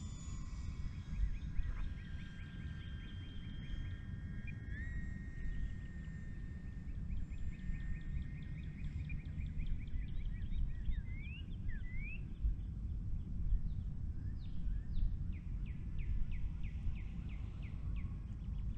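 Steady low rumble of open-air noise with the faint whine of a distant electric RC airplane's brushless motor, its pitch stepping up about five seconds in as the throttle rises. Birds chirp in short rapid series over it, with a few rising calls.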